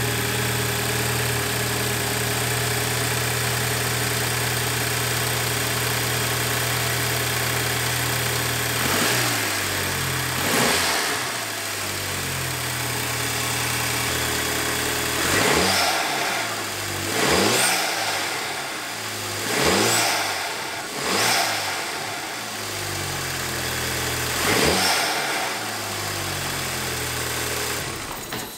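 MK5 Volkswagen GTI's 2.0T FSI turbocharged four-cylinder idling steadily, then blipped about seven times in short revs that rise and fall, with intake noise from the newly fitted open cone-filter intake, air you can really hear being pulled in.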